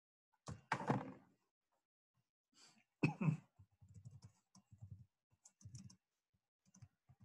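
Faint clicking and tapping of a computer keyboard, broken by two louder short noises, one about half a second in and one about three seconds in.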